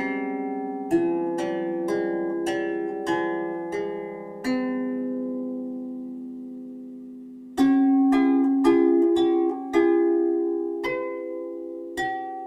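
Background music: a slow melody of plucked string notes, each struck and left to ring. About four seconds in the notes stop and fade, and the melody starts again about halfway through.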